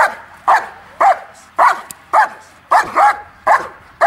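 German Shepherd barking over and over at its handler from a sit, short loud barks coming about two a second.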